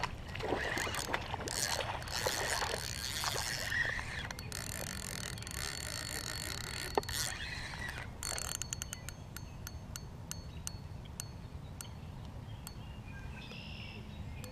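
Water splashing and sloshing in shallow weedy water as a hooked bass is reeled in to the bank, followed a few seconds later by a run of light, irregular clicks. Wind rumbles on the microphone throughout.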